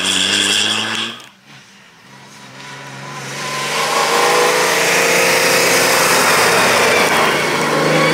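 Off-road rally cars driving flat out on a dirt track. One car is passing close at the start and is cut off about a second in. Another then approaches, growing louder, and passes at high revs with gravel and tyre noise.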